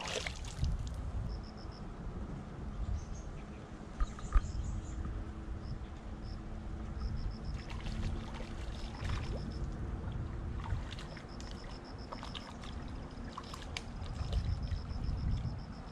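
Wind rumbling on the microphone over riverside ambience, with short runs of high, rapid chirping repeated many times and a sharp click about four seconds in.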